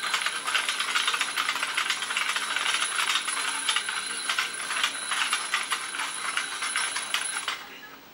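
Alarm clock of a hand-slap alarm ringing: a fast, dense clattering rattle with steady high ringing tones, which stops abruptly near the end.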